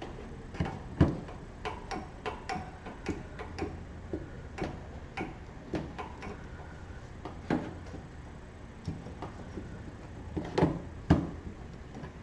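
Irregular sharp clicks and light knocks of a wrench working a plastic oil drain plug loose on a Kawasaki twin-cylinder engine, about two or three a second. The loudest clicks come about a second in and again near the end.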